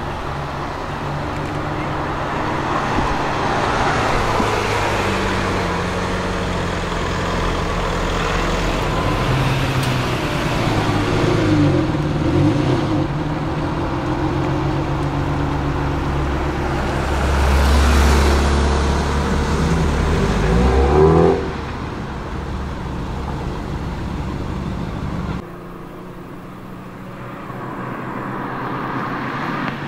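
Lamborghini V12 engines, an Aventador S and then a Murciélago, pulling away and revving, the pitch rising and falling; the loudest rev comes about two-thirds of the way in and cuts off sharply. After a sudden drop, quieter engine noise of a passing car builds toward the end.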